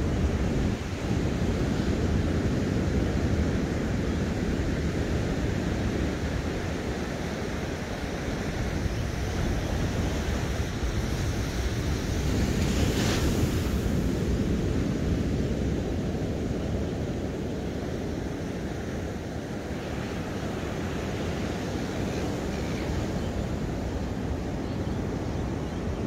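Ocean surf washing onto a beach, a steady wash of waves with wind rumbling on the microphone; a brief louder hiss about halfway through.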